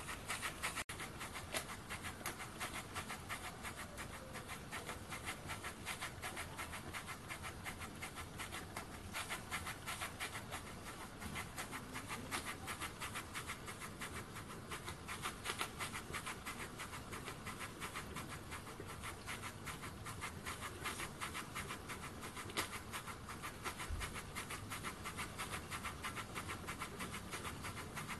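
RETROL model beam steam engine running slowly under its own steam, its valve and exhaust making a fast, even ticking chuff.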